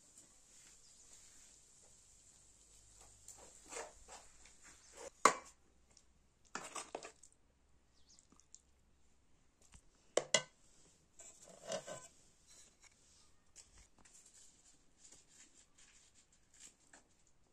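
Scattered short knocks and rustling handling sounds. A few louder ones come about five, seven, ten and twelve seconds in.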